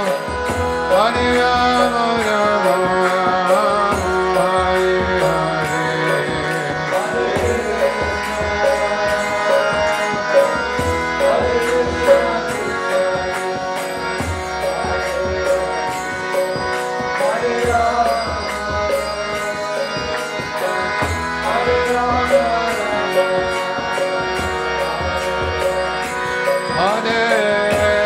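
Kirtan: voices chanting a devotional song over a held drone, with a hand drum and small hand cymbals keeping a steady beat.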